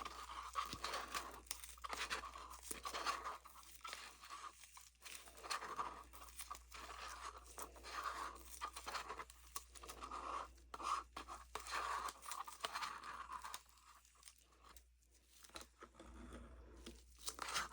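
Plastic mixing cups being handled and scraped with a stirring stick: scattered small clicks, crackles and short scrapes, fading to a lull a little past the middle before picking up again.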